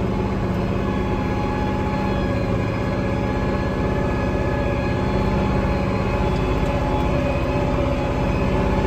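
International Harvester six-cylinder diesel tractor engine running steadily under load as the tractor works through deep mud.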